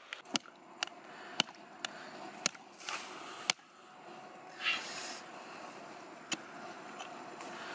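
Small wood campfire crackling, with sharp pops about every half second during the first few seconds and one more near the end. A couple of short rasping scrapes come in between, a cleaver scraping the singed skin of a duck.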